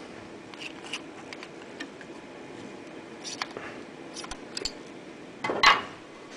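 Hand seaming pliers folding a thin zinc sheet: scattered small metallic clicks and snaps of the jaws and the sheet, then a louder metallic clatter about five and a half seconds in.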